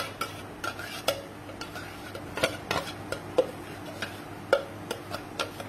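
Metal spoon scraping thick spice paste out of a mixer-grinder jar into a steel bowl, knocking against the jar and the bowl in irregular clicks, about three or four a second.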